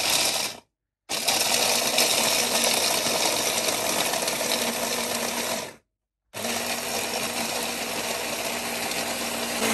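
Electric hand blender with a chopper bowl attachment grinding roasted walnuts and almonds into powder: a loud, steady motor whir with grinding noise. It cuts off abruptly twice for about half a second.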